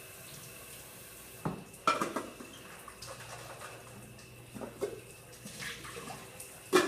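Plastic toiletry bottles and caps being picked up and set down on a bathroom sink counter: several sharp clacks, the loudest near the end, over a steady hiss.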